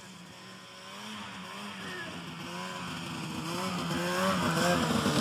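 Snowmobile engine running as the sled approaches, growing steadily louder, its pitch wavering up and down with the throttle.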